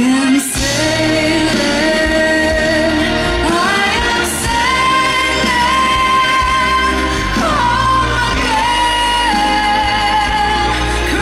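A young woman singing a pop ballad live into a handheld microphone over band accompaniment, a vocal without pitch correction. She holds long notes and steps up to a higher one about four seconds in.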